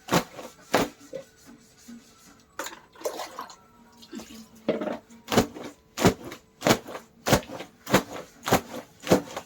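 Clothes being washed by hand with wet, splashy strokes: a few scattered strokes, then a steady rhythm of about one stroke every 0.6 seconds from halfway through.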